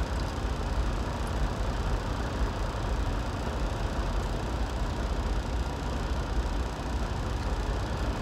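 Truck engine idling, a steady low rumble heard inside the cab.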